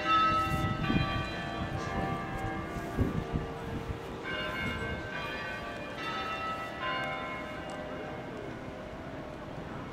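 Bells in a city-hall clock tower ringing a slow sequence of different notes, a tune. Each strike comes in suddenly and is left ringing to fade under the next, over a low outdoor rumble.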